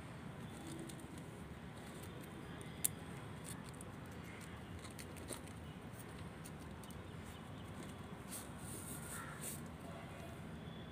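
Faint handling sounds as hands work a dried cardamom-pod garland and yarn on a steel plate: light rustles and scattered small clicks, with one sharper click about three seconds in.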